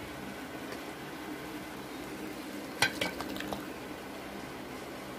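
Metal kitchen utensils clinking while the chocolate syrup ingredients are combined: one sharp clink almost three seconds in, then a few lighter taps, over a steady background hiss.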